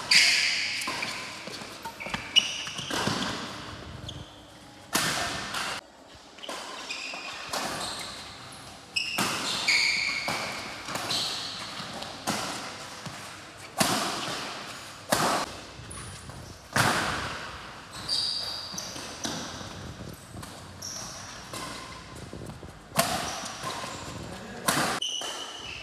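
Badminton rally in a hall: sharp racket hits on the shuttlecock, one every second or two, each with an echoing decay, with short high squeaks between some of them.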